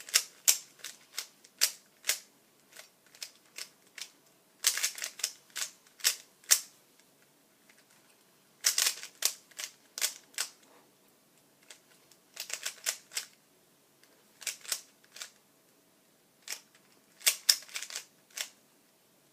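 3x3 Rubik's cube being solved by hand: its plastic layers click as they are turned, in quick runs of turns with short pauses between them.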